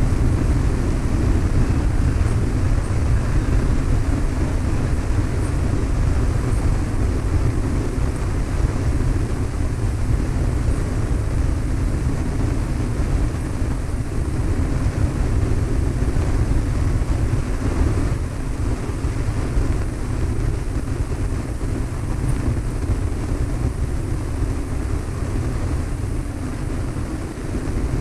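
Cessna 152's four-cylinder engine and propeller running steadily, a continuous deep drone heard from inside the aircraft.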